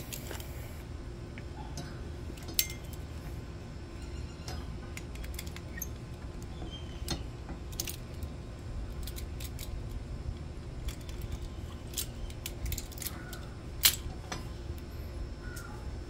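Small metallic clicks and clinks from a Torx key and the Can-Am X3's brake caliper hardware handled by hand while the pad retaining pin is worked loose. Two sharper clicks stand out, about two and a half seconds in and near the end, over a steady low rumble.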